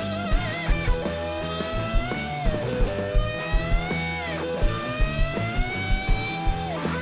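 Live blues-rock band with an instrumental electric guitar lead: long held, bent notes that climb slowly in pitch and fall away twice, over bass and a steady kick-drum beat.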